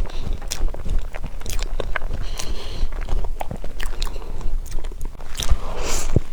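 Close-miked eating sounds of a sesame crepe cake being chewed: irregular sticky, wet mouth clicks and smacks.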